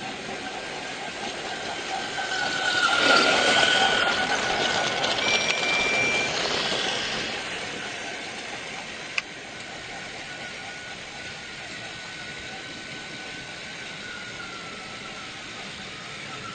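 Motorised toy train running along its track with a steady whine. It gets louder as it comes close from about two to seven seconds in, then fades back to a steady run. There is a single sharp click about nine seconds in.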